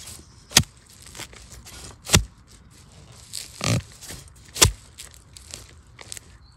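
Metal digging blade striking into soil to dig out a bamboo shoot: four sharp chops about a second and a half apart, with crunching and scraping of earth between them.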